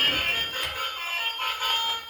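An electronic melody of high, tinny tones changing note every fraction of a second.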